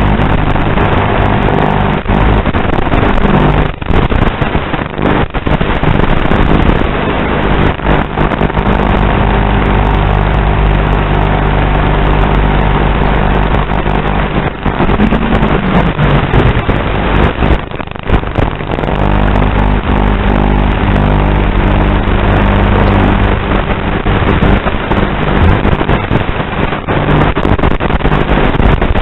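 Steady loud buzz carried on the audio of an FPV quadcopter's analog video link, with a few brief dropouts.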